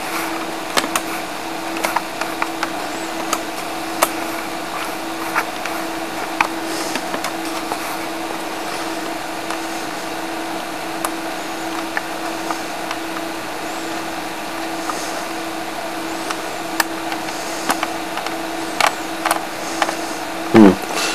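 Steady hum with a constant low tone and hiss, with scattered faint clicks.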